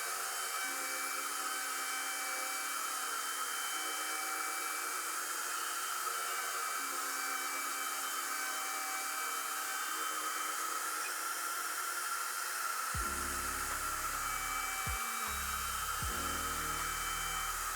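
Shaper Origin handheld CNC router's spindle running steadily as it mills a hinge cup pocket into a cabinet door, a constant whining hiss.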